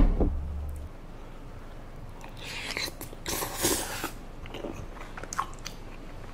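Close-up mouth sounds of chewing spicy tteokbokki rice cakes: small wet clicks, and a long breathy hiss of air a couple of seconds in. It opens with a single low thud as a drinking glass is set down on the table.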